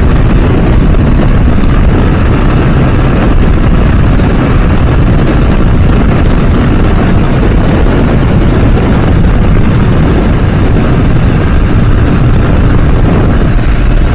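Wind rushing over the microphone of a moving motorcycle, with the vehicle's running noise under it: a loud, steady rumble.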